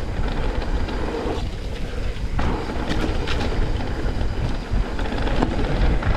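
Wind rushing over the microphone with tyres rolling over a wet dirt trail during a mountain-bike descent, with scattered rattling clicks from the bike.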